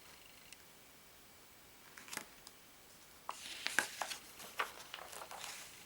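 Magazine pages being turned and handled: a brief paper rustle about two seconds in, then a run of crisp rustles and swishes from about three seconds on.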